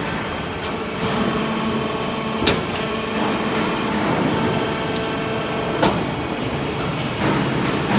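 Hydraulic aluminum-chips baler running, a steady machine hum with two sharp metallic clicks a few seconds apart.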